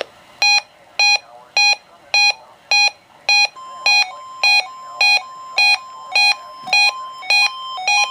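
Weather alert radio receiver's alarm beeping, a short high beep repeated about every half second, set off by the weekly NOAA Weather Radio test. From about three and a half seconds in, the steady NOAA Weather Radio warning alarm tone sounds faintly under the beeps.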